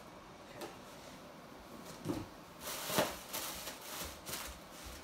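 A cardboard product box is handled and set down on the floor with a couple of dull knocks. Plastic air-pillow packing crinkles and rustles as it is pulled out of the shipping carton.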